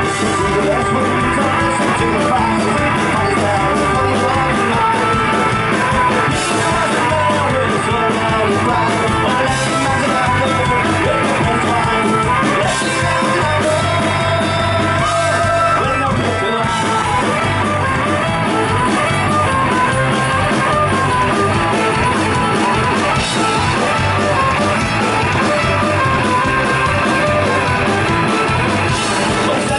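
Folk-punk band playing live: fiddle, acoustic guitars, bass and drums, with a man singing. The music is loud and steady, heard through the venue's PA.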